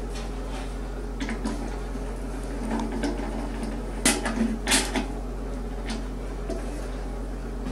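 Scattered metal clicks and clinks of a hand bit driver on the retaining bolts of a washing machine drum spider, against the stainless steel drum, as the bolts are tightened. The loudest two knocks come about four and a half seconds in. A steady low hum runs underneath.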